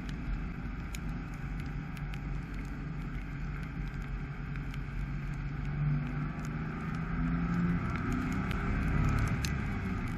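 Dacia Sandero Stepway driving on wet roads: a steady engine hum and tyre hiss, with scattered sharp ticks. The engine note rises a little about seven seconds in.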